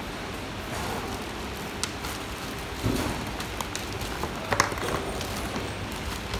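Plastic lamp holders and cable of a festoon light string knocking and rustling as they are handled, a few sharp clicks with the loudest cluster about two thirds of the way in, over a steady background hum.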